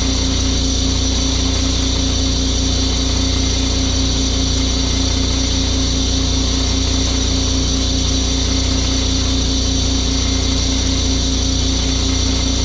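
Pressure washer's gas engine running steadily at constant speed.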